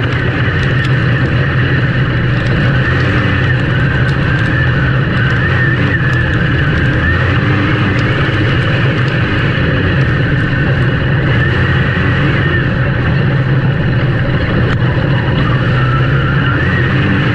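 Race vehicle engine running loud and steady, its pitch wavering up and down a little.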